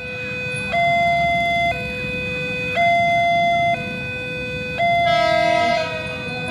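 Level-crossing electronic warning alarm sounding a steady two-tone signal, a lower and a higher tone alternating about once a second, to warn road traffic of an approaching train. From about five seconds in, more tones sound over it.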